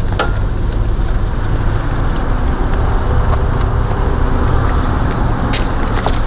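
2015 FAW Oley's engine idling steadily, heard from inside the car with the door open. A light click comes just after the start, and another about five and a half seconds in.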